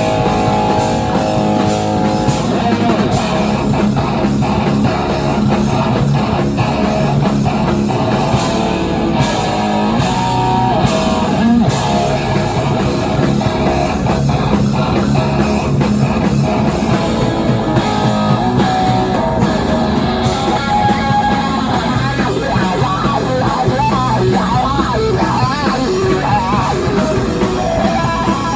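Live heavy rock band playing: loud distorted electric guitars over a drum kit, with some singing.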